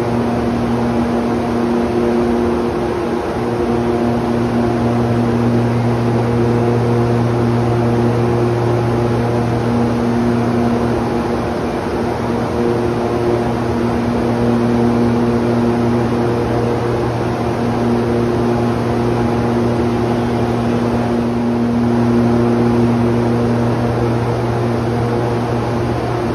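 Busy city street din, carried by a steady low machine hum that holds one pitch throughout, like an idling engine, over a broad wash of traffic noise.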